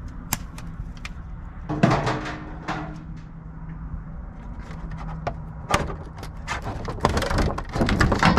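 Screwdriver clicking and scraping as a metal piece is worked loose from a television's frame for scrap. There is a loud scrape with a drawn-out creak about two seconds in, a sharp knock near six seconds, and a stretch of busier scraping and rattling near the end.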